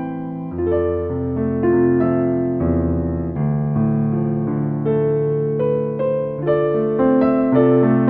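Background piano music: slow, held chords and notes changing about once a second.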